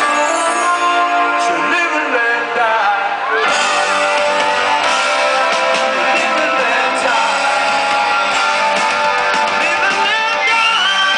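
Live rock band music played loud through a concert PA loudspeaker, with singing and guitar.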